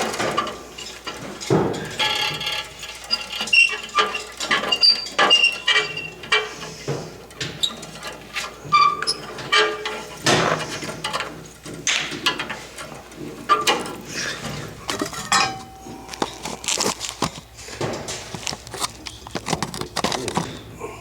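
Irregular metallic clinks, knocks and scrapes from hand tools and metal fittings being handled on a water heater's gas control valve, with a few brief squeaks.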